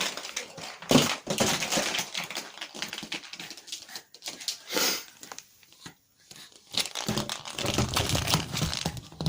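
Crinkly paper or plastic being crumpled and rustled in irregular bursts, with a short pause about six seconds in.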